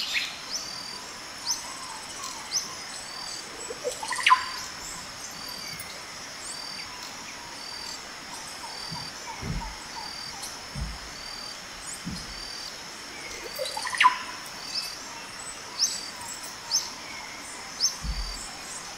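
Outdoor ambience of birds calling and insects chirping. A short high chirp repeats about once a second. A louder rising whistle comes about four seconds in and again about ten seconds later, and there are a few low thumps.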